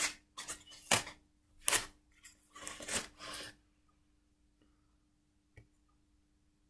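Foam packaging insert rubbing and squeaking as a kalimba is pushed out of it, a series of scrapes over about three and a half seconds, followed by one faint click.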